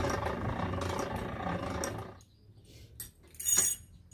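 Boat-slip winch running as it lets a boat on its cradle down the rails into the water. It stops abruptly about two seconds in, and a short metallic rattle follows near the end.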